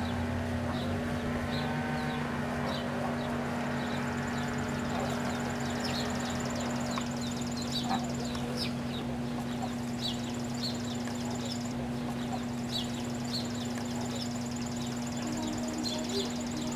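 Mallard ducklings peeping, short high calls several times a second, over a steady low hum.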